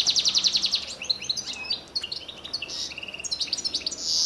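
Small songbirds chirping and singing, opening with a rapid trill of quick high notes in the first second, followed by scattered short chirps and brief trills.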